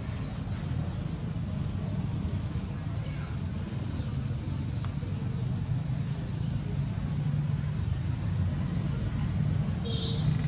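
Steady low rumble of a potter's wheel turning under a large clay pot, with a faint high, evenly pulsing chirp above it.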